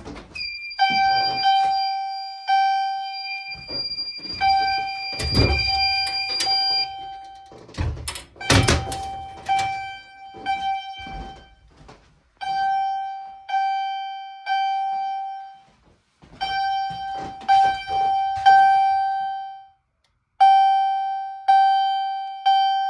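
Fire alarm chime signal striking in the temporal code: groups of three ringing chimes about a second apart, each group followed by a pause. Loud thunks come in the first half, around five and eight seconds in.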